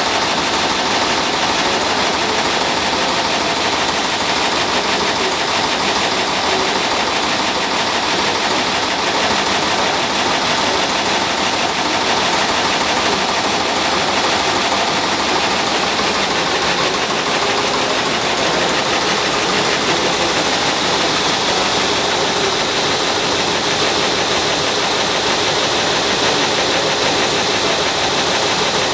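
Vintage vertical stationary engine driving a dynamo, running steadily at an even speed with a fast, regular beat.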